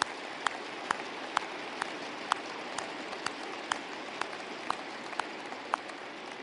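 Large crowd applauding, with a sharp bang repeating steadily about twice a second that stops near the end.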